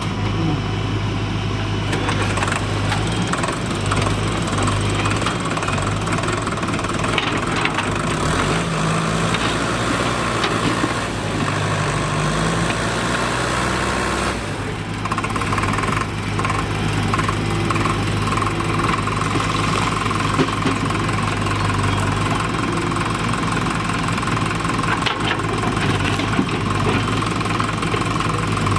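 Diesel engine of a backhoe loader at work, running steadily, with its note changing about halfway through.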